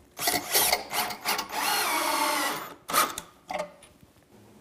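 Cordless drill/driver driving a pocket-hole screw through the plywood cabinet carcass into the face frame: a few short stop-start bursts, then a steady run of about a second that stops abruptly, followed by two brief bursts.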